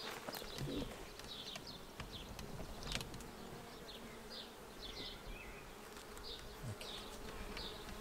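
Honey bees buzzing around an open hive, a steady faint hum as frames are being lifted out and put back during an inspection.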